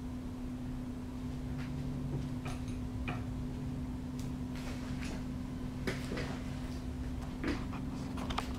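A steady low electrical hum, with scattered soft clicks and brief rustles as a peregrine falcon shifts and works at its food on a perch; the sharpest clicks come about six seconds in and near the end.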